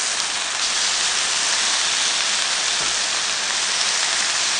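Marinated chicken thighs and bits of garlic sizzling on a hot ridged griddle pan, a steady hiss.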